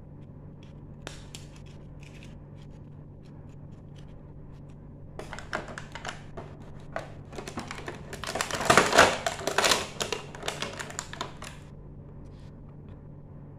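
Small plastic toy furniture pieces being handled and pulled out of a moulded plastic packaging tray: a few light clicks at first, then several seconds of dense clicking, rattling and scraping of plastic on plastic, loudest just past the middle.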